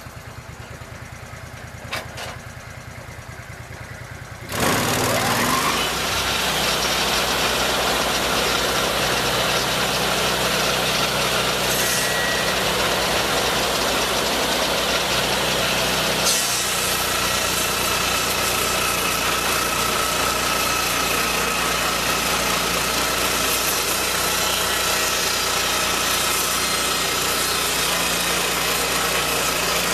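Lucas swingblade sawmill's engine idling, then opened up to full speed about four and a half seconds in, running loud and steady as the circular blade cuts along the log.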